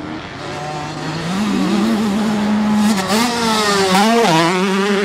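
Motocross bike engines revving, the pitch rising, falling and stepping as riders work the throttle and shift through a corner. The loudest stretch comes in the second half, with a bike passing close.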